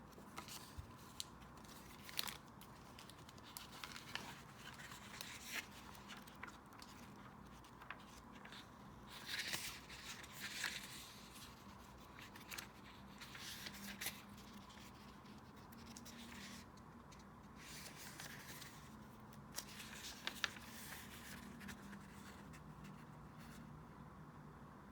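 Faint paper and stationery handling at a desk: scattered small clicks and taps, with short rustling, scraping bursts like paper being cut, torn or brushed, over a faint steady hum.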